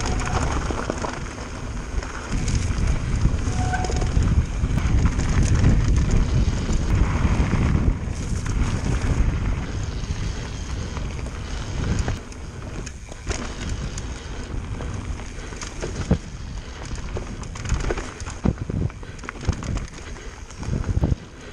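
Mountain bike descending a dirt trail at speed: wind rushing over the camera microphone, tyres rolling over the dirt, and the bike rattling and knocking over bumps. The wind noise is heaviest in the first part and eases as the trail enters the woods.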